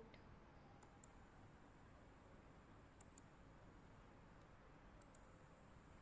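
Near silence with a faint hiss, broken by a few faint computer mouse clicks that come in about three quick pairs.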